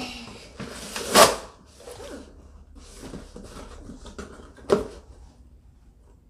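Packing tape being peeled and ripped off a cardboard box, with scratching and rustling of the cardboard as the flaps are worked. Two short, louder rips stand out, about a second in and again a little before the end.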